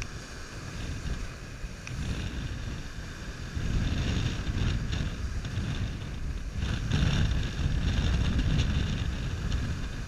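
Ocean surf breaking and washing over shoreline rocks, with wind rumbling on the microphone. It swells louder about four seconds in and again about seven seconds in.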